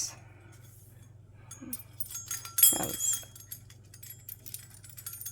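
Stainless steel bird toy jingling: its metal tags and chain clink against each other and against the bell cup, with a bell ringing loudest about three seconds in. A short, falling animal-like call sounds at the same moment.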